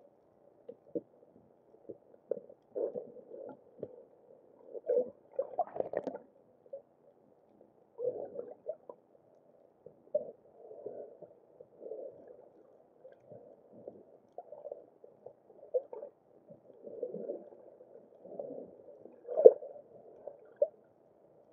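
Muffled, irregular gurgling and sloshing of water heard through an underwater camera's housing, coming in short bursts, with the loudest ones about five seconds in and near the end.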